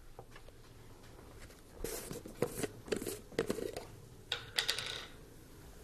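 Scattered light clicks, knocks and scuffs as a glass jar of honey is handled and its lid twisted off, with a brief crackling rustle near the end.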